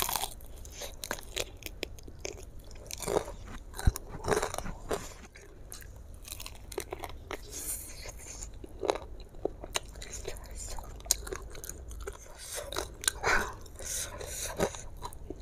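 Close-miked bite into a crispy battered fried chicken drumstick at the start, then chewing with many irregular crunches and clicks of the crust.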